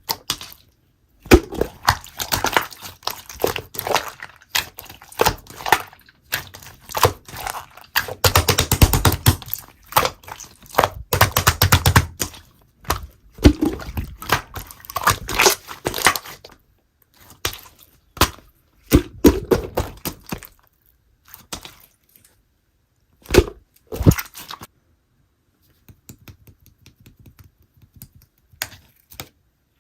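Slime being worked by hand: bursts of crackling and popping clicks as it is squeezed and pressed, with short pauses between bursts. The clicks grow sparse over the last few seconds.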